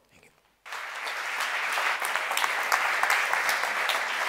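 Audience applauding: a dense mass of hand claps that starts abruptly a little under a second in and carries on steadily.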